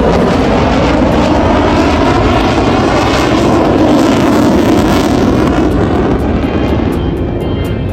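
Aircraft flying past at an air show, its engine roar loud and steady, then easing off in the last second or two.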